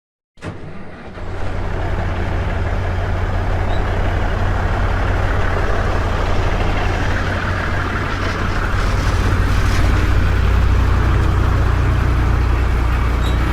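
An engine running steadily with a deep low hum, growing a little louder partway through.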